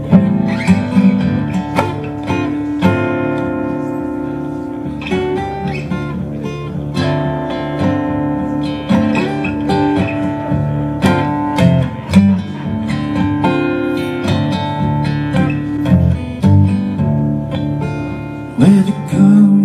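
Solo acoustic guitar playing an instrumental passage: plucked notes and chords ringing over a steady bass line.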